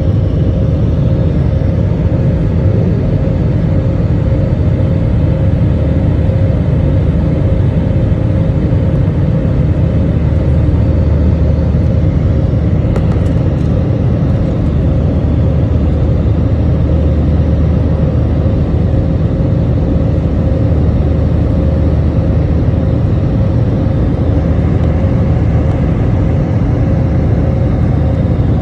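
Jet airliner's turbofan engines heard from inside the cabin over the wing while climbing out: a steady loud rumble with a constant hum note above it. A few faint clicks about halfway through.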